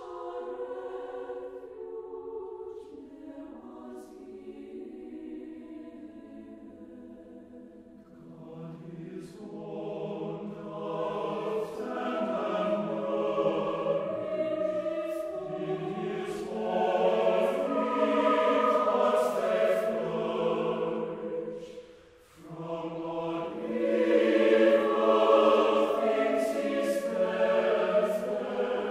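A choir singing a slow piece: soft at first, swelling louder after about eight seconds, with a brief pause about two-thirds of the way through before the voices come back in.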